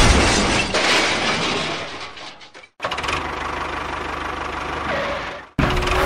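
Vehicle engine noise in two stretches: a loud, rough running that fades away over the first two and a half seconds, then after a short gap a steadier idling with a low hum that cuts off suddenly about half a second before the end.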